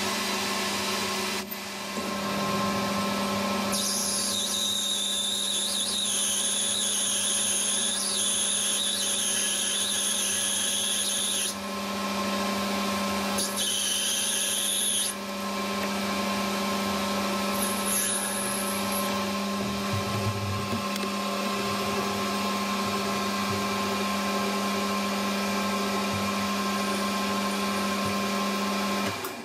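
Metal lathe running with a steady motor hum while a drill in the tailstock chuck cuts into a spinning brass part. A high-pitched whine rises over the hum twice while the drill cuts, the longer stretch from about four to eleven seconds in.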